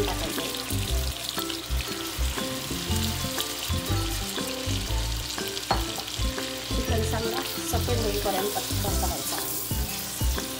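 Raw chicken pieces sizzling in hot melted butter in a kadhai, with a steady sizzle throughout, stirred with a spoon near the end.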